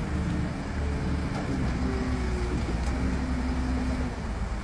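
Volvo truck's diesel engine running with a low rumble, then dying out about four seconds in as the engine stalls.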